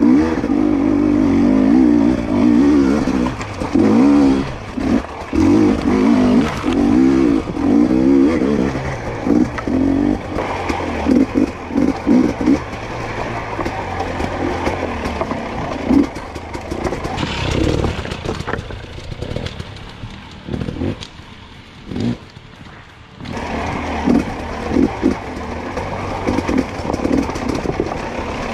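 A 2022 GASGAS EC250 two-stroke dirt bike engine, heard from on the bike, revving in short bursts on and off the throttle while the bike scrapes and clatters over rocks. It drops off and goes quieter for a few seconds after the middle, then picks back up.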